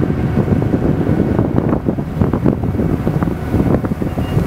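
Wind buffeting the microphone on the bow of a tour boat under way, a loud, gusty low rumble over the boat's running noise.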